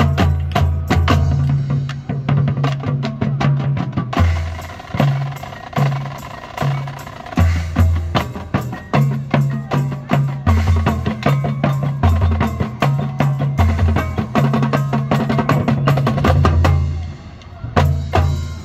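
Marching band drumline and front-ensemble pit playing a percussion feature: rapid snare and tenor-drum strokes over deep low notes. The playing stops with a last couple of hits near the end.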